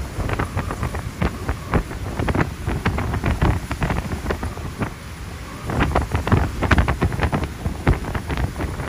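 Tropical-storm wind gusting hard and buffeting the microphone in loud, irregular blasts. The gusts ease off briefly around the middle, then pick up again more strongly.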